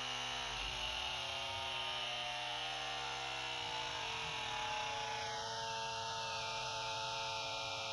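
Small 12-volt portable tire-inflator air compressor running steadily as it pumps up an air jack, a buzzing hum whose pitch shifts in small steps a few times.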